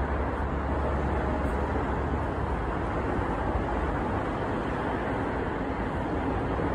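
Steady outdoor background noise, a low rumble and hiss, heavier in the low rumble for the first couple of seconds.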